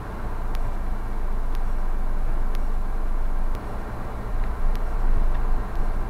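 Car cabin noise picked up by a dashcam: a steady low engine and road rumble with a hiss over it, and faint sharp clicks about once a second. The sound drops and shifts a little past halfway.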